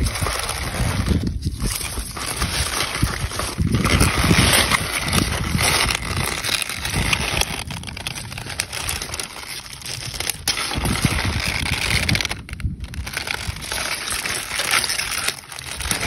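Wind buffeting the microphone outdoors: a continuous rushing noise that surges and eases, with brief dips.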